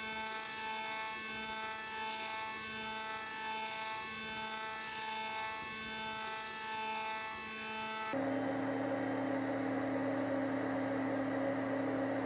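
A 2 kW CNC router spindle at 13,000 rpm milling mild steel with a 6 mm carbide end mill: a steady high whine of the cut over a strong hiss. About eight seconds in the sound changes abruptly to a lower steady hum and the hiss stops.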